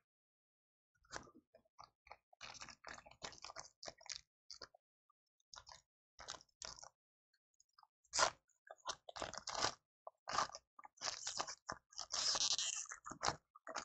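Foil wrapper of a trading-card pack crinkling and tearing as it is opened by hand: irregular crackles that start about a second in and grow louder and denser in the second half.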